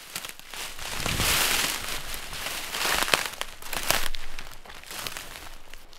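Crackling, crunching noise with scattered sharp clicks, swelling and fading in waves.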